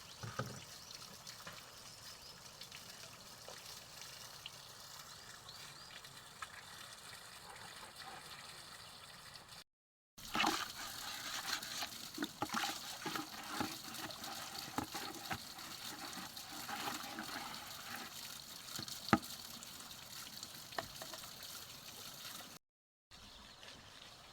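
Running water trickling steadily. About ten seconds in, a busier stretch begins with many small knocks and clinks over the water. The sound drops out briefly twice.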